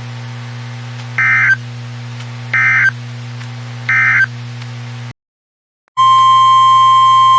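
Emergency Alert System end-of-message signal: three short, identical bursts of warbling digital SAME data, about 1.4 s apart, over a low receiver hum. After a brief dead gap, the loud, steady 1050 Hz weather-radio alert tone starts about six seconds in, announcing the next warning.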